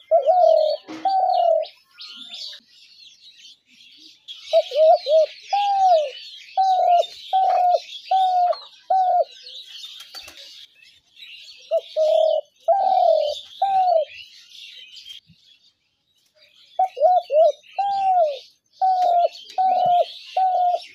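Spotted dove cooing, giving four runs of short repeated coos with pauses of one to three seconds between them. Small birds chirp continuously at a higher pitch behind the coos.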